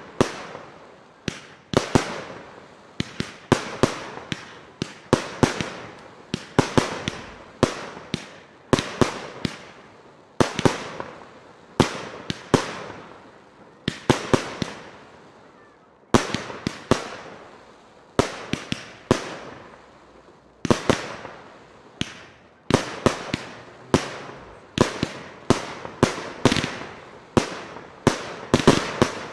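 Aerial fireworks bursting overhead in a steady succession of sharp bangs, roughly one to two a second and sometimes in quick pairs, each trailing off in a rolling echo.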